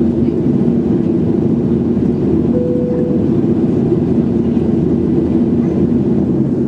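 Boeing 737-800 cabin noise: the CFM56-7B engines and airflow make a steady, loud drone, with two humming tones in it. A short faint tone sounds over it about two and a half seconds in.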